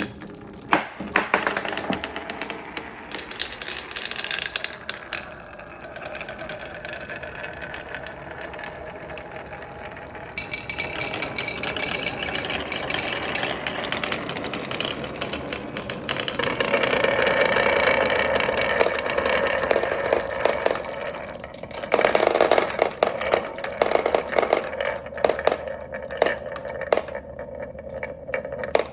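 Marbles rolling and clattering down a wooden marble-run track, a continuous rattle of small clicks and knocks. The clatter grows louder and denser about two-thirds of the way through.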